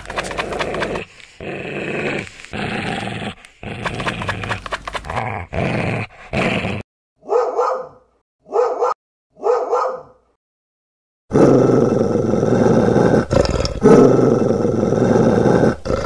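Dog growling in a string of short rough bursts, then three short barks, and after a brief pause a long continuous growl from about eleven seconds in.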